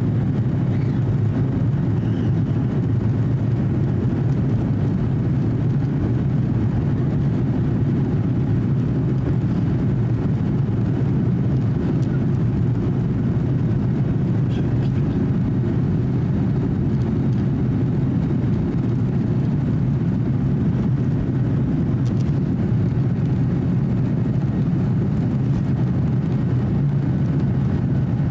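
Steady low rumble of a Boeing 737-800's CFM56 turbofan engines at low power while the airliner taxis, heard from inside the cabin. The level stays even throughout, with no spool-up.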